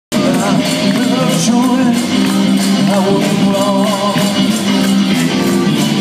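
Live band: a man singing with a wavering melody over amplified electric guitar chords, with regular cymbal-like drum hits.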